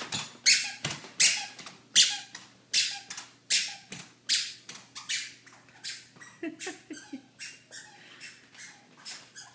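Toddler's squeaky shoes squeaking with every step, a high chirp about every three-quarters of a second, growing fainter as the child walks away.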